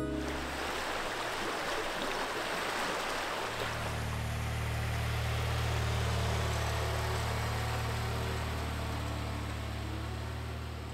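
Rushing stream water, then about three and a half seconds in a small tractor's engine comes in with a steady low note that swells and then slowly fades as the tractor drives away pulling a trailer.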